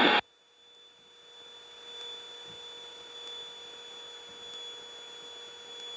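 Faint steady electrical hum with a thin high whine and light hiss, coming up about a second after a drop to silence. This is the noise floor of the aircraft's intercom audio feed, with no engine heard.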